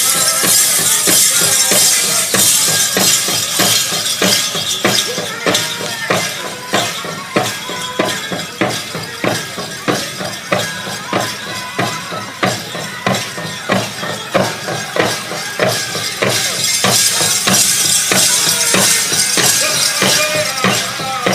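Powwow drum group playing a dance song: a big drum struck in a steady beat of about two strokes a second, with singers' voices over it and a bright jingling of bells.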